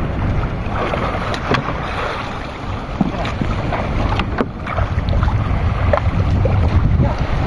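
Wind buffeting the microphone over sea water sloshing around a small outrigger fishing boat, with a few light knocks scattered through.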